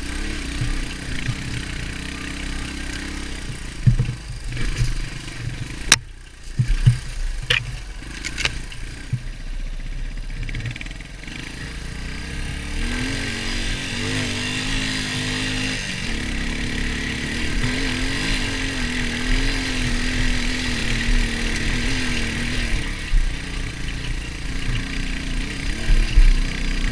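Beta Alp 200's air-cooled single-cylinder four-stroke engine running as the dirt bike is ridden over rough ground. Several sharp knocks come between about four and nine seconds in. From about thirteen seconds the engine holds a steadier, slightly wavering note.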